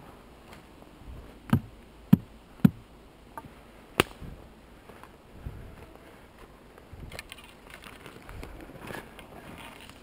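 Walking through forest undergrowth: footsteps and rustling on the forest floor, with four sharp cracks between about one and a half and four seconds in, the first three about half a second apart.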